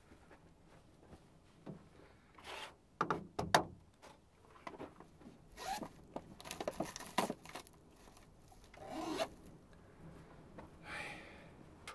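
Handling noises as plastic bags and containers are picked up and opened: short rasping, rustling passes and several sharp clicks. The loudest are two clicks about three seconds in.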